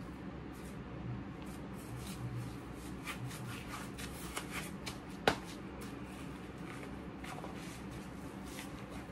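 Coated work gloves rubbing and clapping together in a dry rustling with many small clicks, thickest in the middle, and one sharper click a little past halfway.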